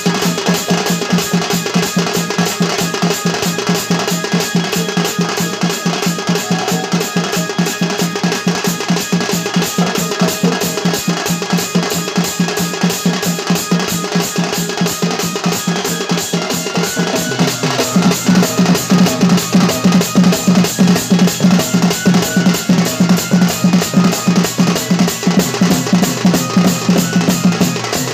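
Fast, drum-heavy Sambalpuri folk music for a danda dance: a quick, steady beat over held tones. About two-thirds of the way through it grows louder, with a heavier low beat.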